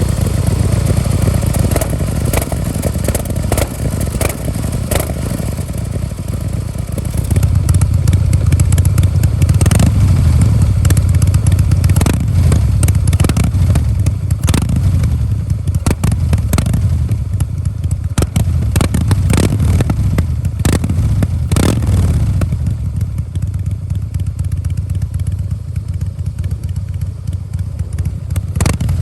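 Harley-Davidson Breakout CVO's Twin Cam 110 V-twin engine running through its exhaust, getting louder about seven seconds in and easing off again a little past twenty seconds. Short clicks and knocks are scattered through it.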